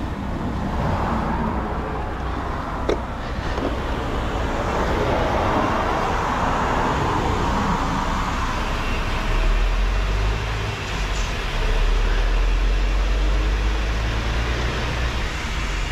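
Heavy recovery truck's diesel engine running steadily. About nine seconds in it becomes deeper and louder, dips briefly, then holds the heavier note. There is one sharp click near three seconds in.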